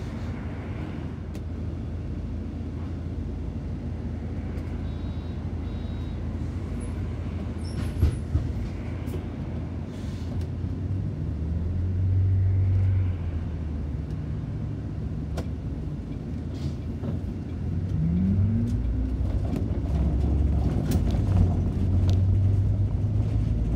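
City bus engine and drivetrain running as the bus drives, heard from inside the bus. The low drone rises in pitch about eighteen seconds in as the bus speeds up, and there is a short knock about eight seconds in.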